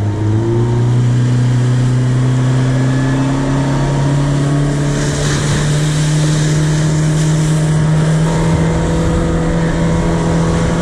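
Boat motor running under way, its pitch climbing slowly and steadily as it picks up speed, over a steady rushing noise.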